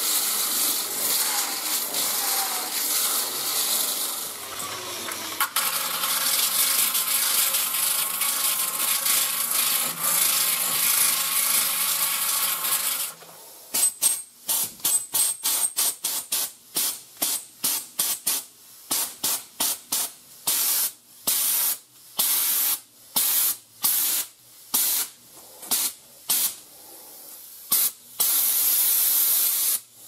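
A 7-inch electric polisher/sander with an abrasive disc grinding down the MIG welds on a sheet-metal patch panel seam, its motor whine wavering with the load; it stops about 13 seconds in. Then a handheld portable sand blaster fires grit at the bare metal in rapid short trigger bursts, ending in a longer continuous blast.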